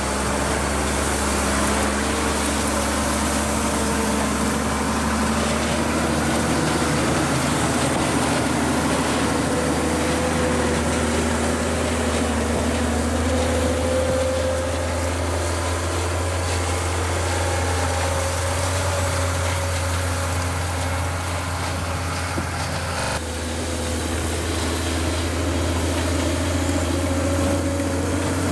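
Diesel engine of a tracked snow groomer running steadily as the machine pushes snow with its front blade, its pitch drifting slightly up and down.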